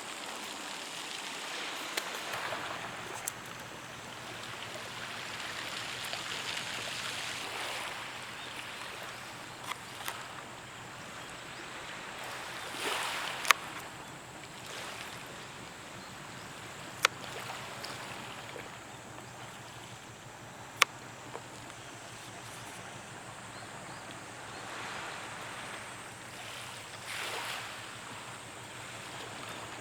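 Small waves washing onto the beach, the surf swelling and fading every few seconds, with a few sharp single clicks now and then.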